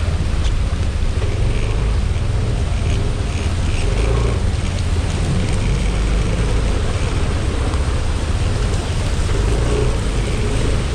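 Steady heavy rain mixed with the low rumble of road traffic on a flooded street.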